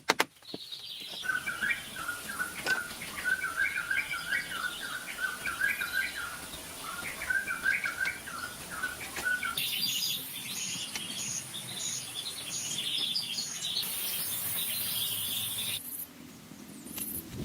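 Wild birds chirping in quick runs of short, repeated notes. About ten seconds in, a higher call repeats evenly over a steady high hiss, then cuts off suddenly near the end.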